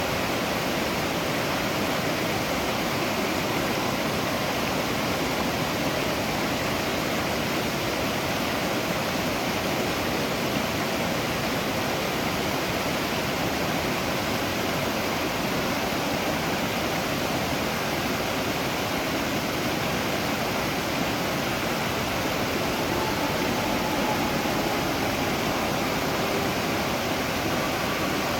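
Waterfall, water falling and splashing in a steady, even rush with no change in level.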